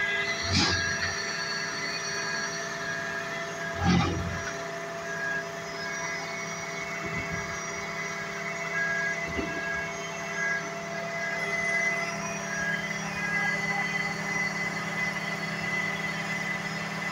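Hook-lift truck's engine and hydraulics running with a steady hum while the arm lowers a waste compactor container onto the chassis, with a warning beeper sounding about twice a second until about three-quarters of the way through. Two heavy clunks of the container, about half a second in and about four seconds in, the second the loudest.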